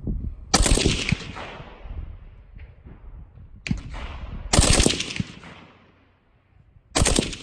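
Suppressed rifle firing short bursts of rapid shots, three bursts and a single shot, each followed by a short echo.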